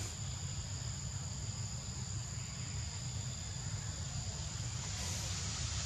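Steady high-pitched insect drone over a low rumble, the high hiss swelling slightly near the end.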